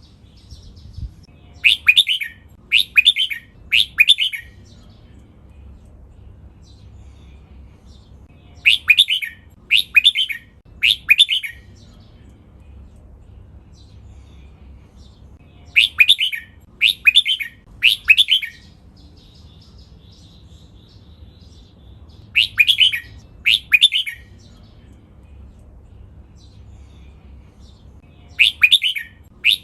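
Red-whiskered bulbul singing, repeating a short phrase of two or three clear notes every six or seven seconds.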